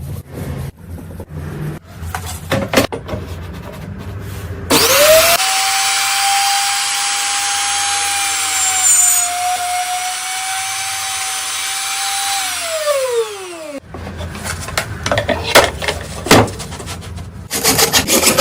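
Electric woodworking power tool switched on, spinning up to a steady high whine for about eight seconds, its pitch dipping slightly about halfway through, then winding down after it is switched off. Before and after it, scraping, rubbing and knocking of wood being handled.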